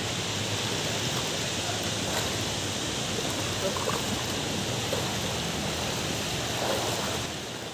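Steady rushing of a shallow river flowing over rocks.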